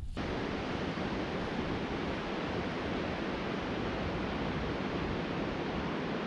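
Steady rush of ocean surf breaking on a sandy beach.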